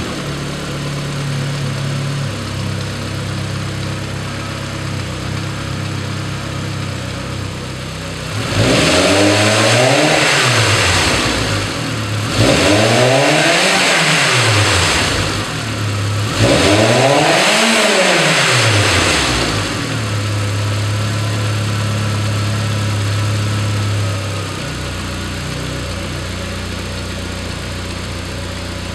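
VW 1.8T turbocharged four-cylinder engine, swapped into a MK3 Golf and freshly started, idling, then revved up and let back down three times a few seconds apart before returning to idle. The idle drops a little in loudness near the end.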